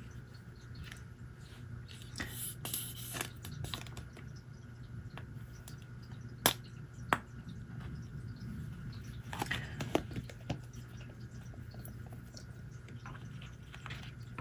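Hands working lace, fabric and a glue bottle on a cutting mat: scattered small clicks, taps and rustles, with two sharp clicks a little past the middle, over a low steady hum.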